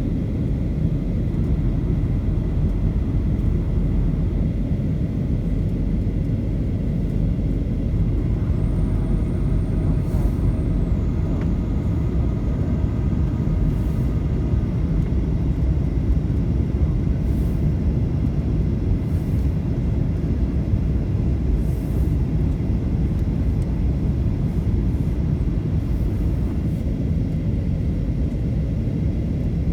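Steady cabin noise of a Boeing 737 in flight: an even low rumble of the jet engines and rushing air, heard from inside the passenger cabin.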